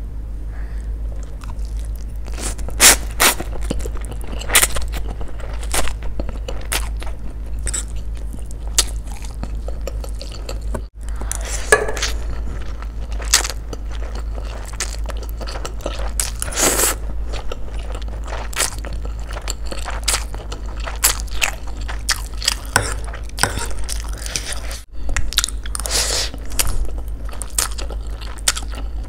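Close-miked eating sounds: a person slurping and chewing spicy instant noodles and rice cakes, with many sharp, irregular wet mouth clicks and smacks over a steady low hum.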